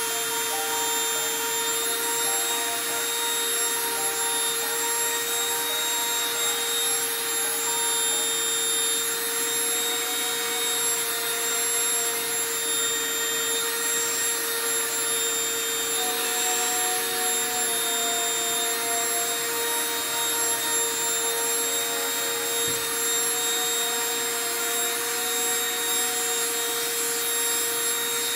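Small handheld rotary tool running steadily at one pitch as its diamond bit drills into sea glass, a constant motor whine with a grinding hiss over it.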